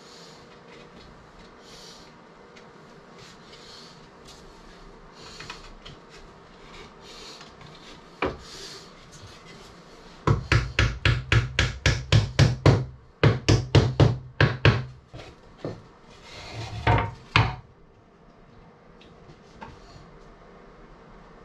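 Faint rubbing strokes on wood, then a fast run of sharp knocks on wood, about four a second, in two bursts with a short gap, and a few more knocks near the end.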